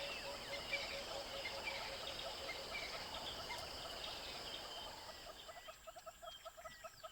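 Crested francolin calling amid a busy background of high chirps; about three-quarters of the way in, a fast, even run of repeated notes at about four a second begins.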